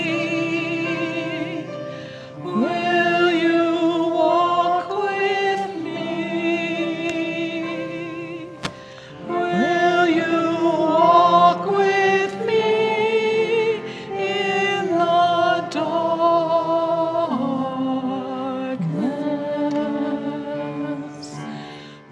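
A congregation and choir singing a hymn, in long held notes and phrases.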